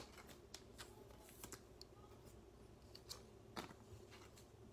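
Faint, scattered clicks and light taps of football trading cards being handled and stacked on a play mat.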